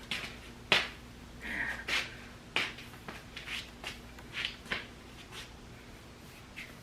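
Scattered rustles, light clicks and knocks of clothing being handled, over a faint steady electrical hum.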